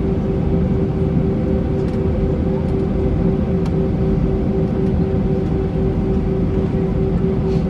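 Airbus A320 jet engines running steadily, heard from inside the cabin: a dense low rumble with a steady hum over it.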